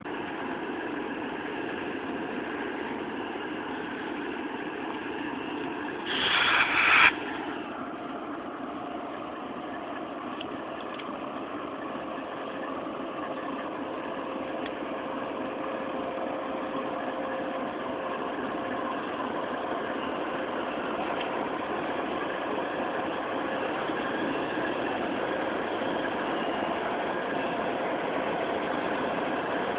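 Diesel-electric locomotives running, a steady engine sound that slowly grows louder. About six seconds in, a loud burst of higher sound lasts about a second.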